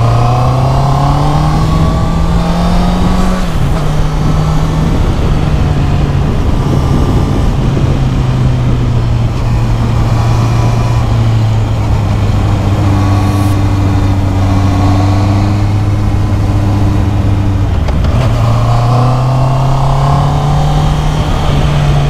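Motor scooter engine running under way on the road, its note climbing over the first few seconds, dropping suddenly, holding steady for a long stretch, then climbing again near the end, over a steady rushing noise.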